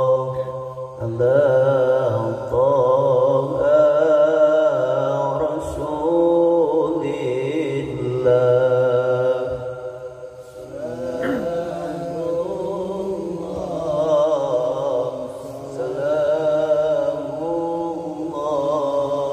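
A man chanting an Islamic sholawat in the Qur'anic reciter's style: long drawn-out phrases in an ornamented, wavering melody, with short breaths between them about a second in, around the middle and near the end.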